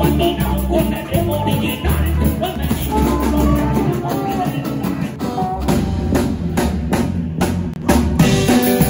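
Live band playing: a drum kit with cymbals drives the beat under a twelve-string guitar and low bass notes. In the second half the drums come forward with a run of hard hits.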